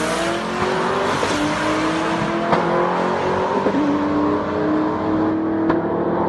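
SN95 Mustang Cobra V8 drag car at full throttle down the strip, its engine note climbing steadily in pitch and growing duller as it pulls away. A sharp click comes about two and a half seconds in, and another near the end.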